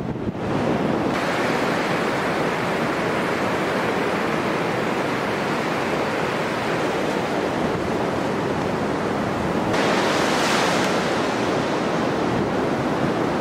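Rough surf breaking on a beach: a continuous heavy rush of waves, with wind buffeting the microphone. The rush swells louder for about a second around ten seconds in.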